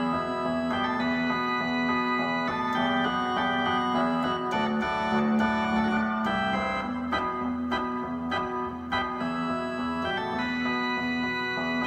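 Nord Electro 5D playing a Vox combo-organ drawbar sound: sustained organ chords over a held low note that shifts pitch a few times midway, with a Fender Rhodes Mark I electric piano split on the lower two octaves for bass.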